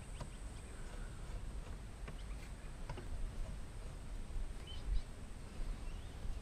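Faint clicks and handling noise of hands threading a banjo bolt and braided brake line into the port of a hydraulic handbrake cylinder, over a low steady rumble, with a louder knock about five seconds in.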